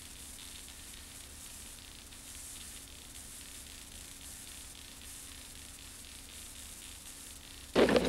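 Steady hiss and low hum of videotape playback. Near the end a sudden loud rush of noise cuts in.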